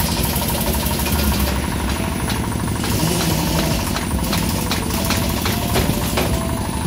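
Diesel generator engine running steadily with a low rumble, with scattered sharp ticks on top.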